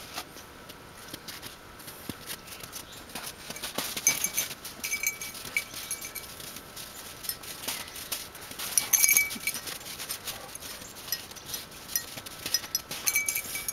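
Two dogs playing in snow: scattered light footfalls and scuffs, with a few short metallic jingles of collar tags.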